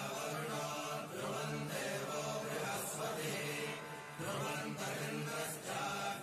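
Male voice chanting Vedic Sanskrit hymns in a steady, measured recitation, phrase after phrase with short breaths between.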